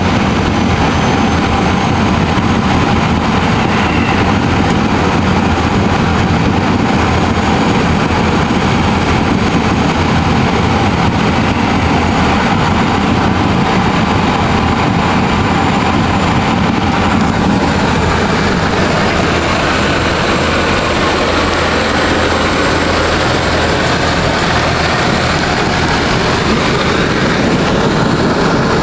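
Steady, loud cabin drone of a DHC-6 Twin Otter's two PT6A turboprop engines and propellers, heard from inside the cabin while the aircraft descends on approach.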